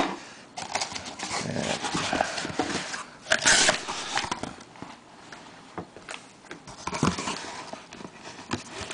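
Handling noise from cardboard and plastic packaging: irregular rustling and light clicks and taps, with a louder rustle about three and a half seconds in.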